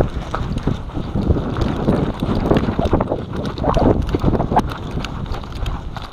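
Wind rushing over a body-worn microphone as its wearer runs, with footfalls and kit rattling in an uneven jolting rhythm.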